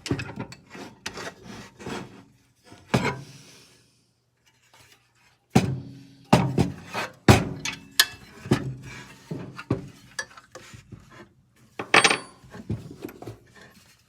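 Irregular clicks, knocks and rubbing of hand tools and metal parts being handled while a cordless miter saw is taken apart, with a short quiet pause about four seconds in.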